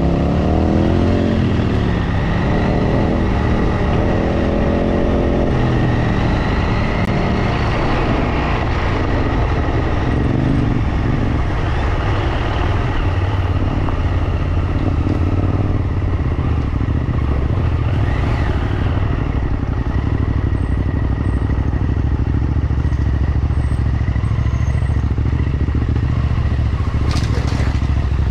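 Motorcycle engine running under way. Its pitch rises and falls over the first several seconds as the throttle changes, then holds fairly steady.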